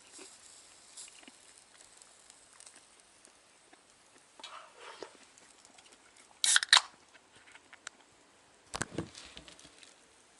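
Two sharp clicks in quick succession about six and a half seconds in, then a duller thump about two seconds later, over a quiet background.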